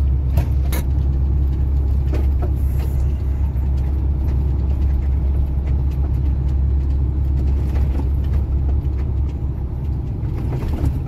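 Heavy truck on the move: a steady low drone of engine and road noise, with a couple of faint clicks about half a second in.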